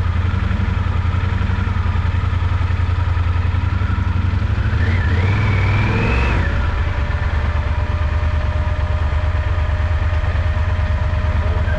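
Yamaha XT1200Z Super Ténéré's parallel-twin engine running steadily, heard close up from the bike. A brief higher tone rises in pitch about five seconds in.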